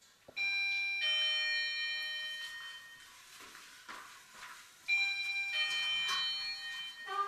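Apartment doorbell chime ringing a two-note ding-dong, rung twice about four and a half seconds apart, each note ringing on and fading.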